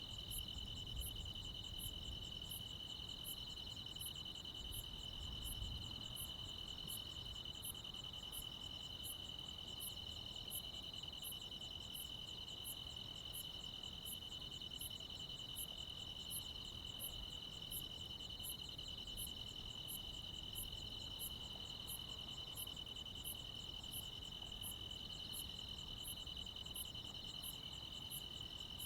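Night chorus of crickets and other insects: a steady, unbroken trill, with a second, higher chirp repeating evenly about once a second.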